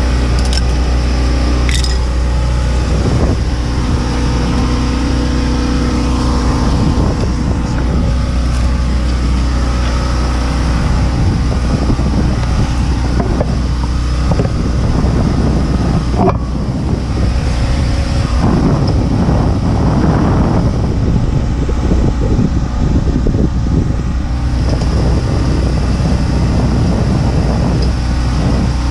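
Car running with a steady low engine hum and road noise.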